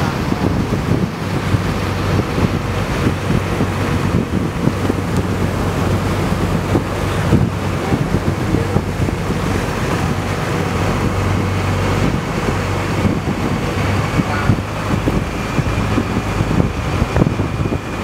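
A fishing boat's engine running with a steady low hum, under the rush of water along the hull and wind buffeting the microphone.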